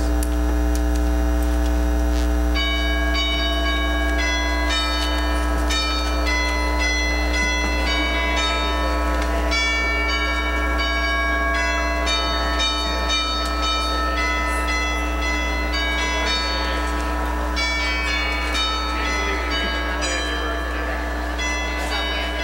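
Bells ringing a run of struck notes, starting about two seconds in, each note ringing on under the next, over a steady low hum.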